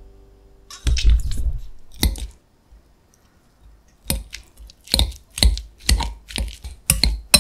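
Wire potato masher mashing peeled hard-boiled eggs in a glass bowl: quick, even squishing strokes with light clinks against the glass, about two a second, starting about four seconds in. A few knocks come earlier, about a second in.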